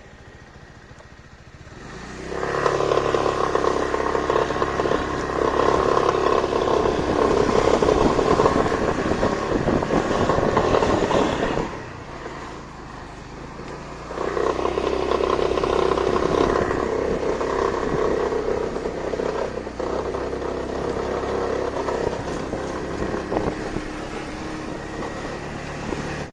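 Kymco X-Town 300i scooter's single-cylinder engine idling, then accelerating hard twice, about two seconds in and again about fourteen seconds in, easing off in between, with a rattle under load. The owner traced the rattle to a power capacitor lead that held back electrical energy when the engine was under load; unplugging it cured it.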